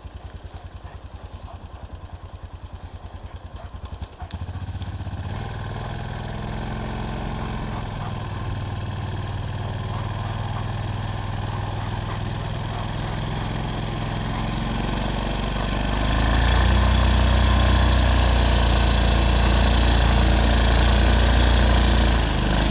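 A small vehicle engine running with a fast putter, then revving up about four seconds in and working harder, louder again from about sixteen seconds, as it strains to drive free of deep snow. It cuts off abruptly at the end.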